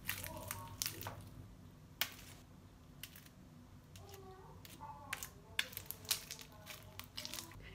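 White-glue slime softened with toothpaste being squeezed and kneaded between the hands, giving irregular sticky clicks and squishes.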